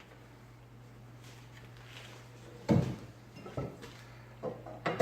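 Knocks and clicks of objects being handled on a workbench: one sharp knock about three seconds in, then a few lighter knocks and clicks near the end, over a steady low hum.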